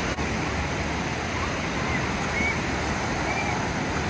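Steady rush of ocean surf washing onto a sandy beach.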